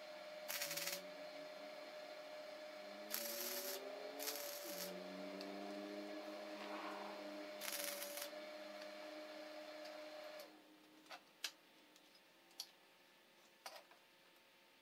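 MIG welder laying four short tack welds on steel brackets, each a brief crackling hiss lasting well under a second, over a steady hum. The hum stops about ten seconds in, and a few light metal clicks follow as the tacked parts are handled.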